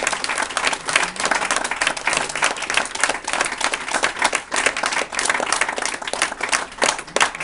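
Audience clapping, a dense, steady run of many hand claps.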